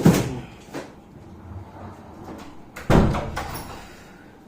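Two loud knocks, one at the very start and one about three seconds in, each trailing off in a short rattle, with fainter handling knocks between them.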